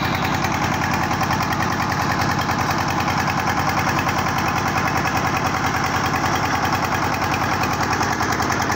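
Single-cylinder diesel engine driving a water-well wash-boring rig and its mud pump, running steadily with an even, rhythmic chug.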